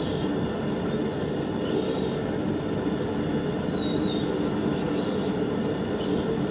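Burners of a homemade forge furnace running, a steady noise heaviest in the low range that holds an even level throughout.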